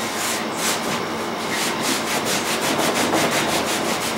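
A cloth rag soaked in thinner rubbing briskly back and forth over an elk antler, an even scratchy swish of about four strokes a second, thinning and lightening the antler's stain.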